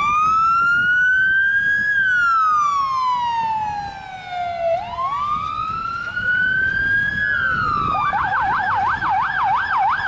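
Ambulance siren sounding a slow wail that rises and falls twice, then switching near the end to a fast yelp of about four up-and-down cycles a second.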